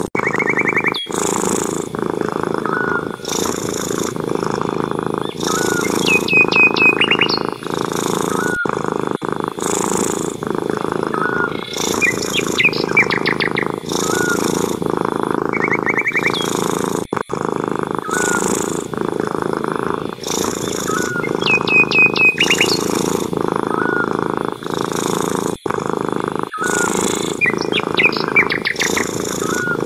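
Domestic cat purring steadily and loudly, with regular short breaks. Small birds chirp and give quick high trills every few seconds behind it.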